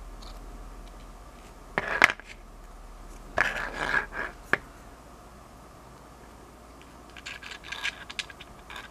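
Small plastic propellers being pressed by hand onto a micro quadcopter's motor shafts, with plastic handling noise: a sharp click about two seconds in, a short spell of scraping and rattling around the middle, and a run of light ticks near the end.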